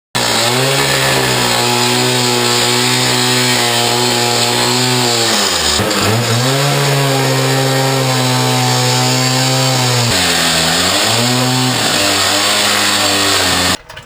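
A loud motor-driven power tool running at a steady pitch, its speed sagging briefly twice as it is loaded, and cutting off near the end.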